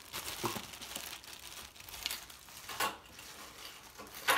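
Clear plastic accessory bag crinkling and rustling as it is handled and opened, with a few sharper crackles, the loudest near the end.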